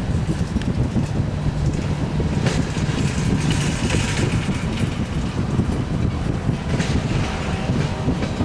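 Freight train cars rolling past on the rails: a steady low rumble with a couple of brief clanks.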